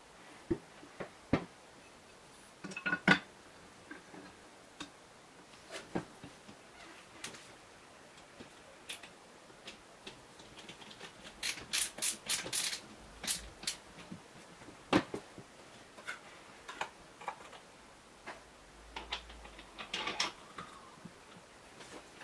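Handling noises of an angle grinder's metal guard with a PVC pipe fitting as it is fitted to the grinder and its clamp tightened with a screwdriver: scattered clicks and knocks of metal and plastic, with a quick run of sharp clicks about halfway through.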